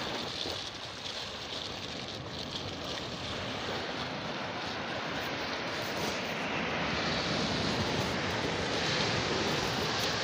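Steady rush of sea surf on the shore, swelling slightly about halfway through.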